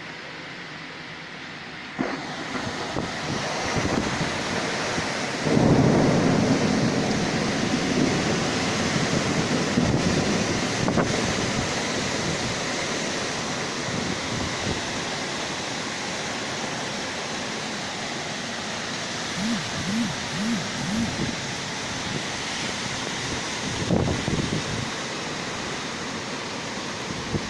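Heavy downpour with gusting storm wind: a dense, steady rush of rain that picks up about two seconds in and swells to its loudest around six seconds, with gusts buffeting and rumbling low.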